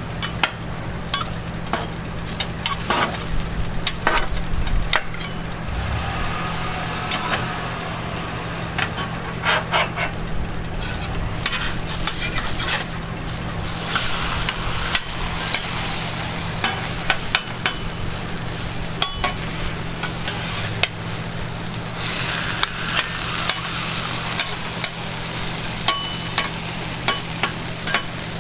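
Egg mixture sizzling on a flat-top steel griddle, with frequent clicks and scrapes of metal spatulas and egg frames against the griddle as square omelettes are lifted and flipped. A steady low hum runs underneath.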